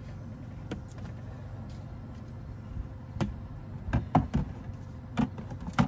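A few short knocks and taps of kitchen containers being picked up and set down on a small counter, clustered in the second half, over a steady low rumble.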